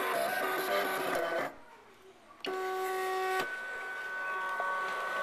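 A small electric machine running in two spells: a rattling whir for about a second and a half, then, after a short pause, a steady whine of several even tones for about three seconds.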